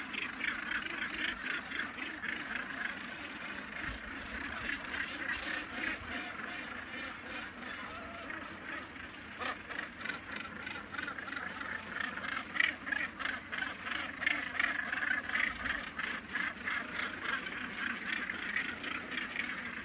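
Northern gannet breeding colony: many gannets calling over one another in a steady, dense din of short calls with no break.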